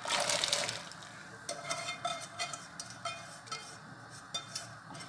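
Chopped celery tipped from a saucepan into a pot of boiling water for blanching: a splashing hiss for about the first second, then light clicks and scrapes as the last pieces are pushed out of the pan by hand.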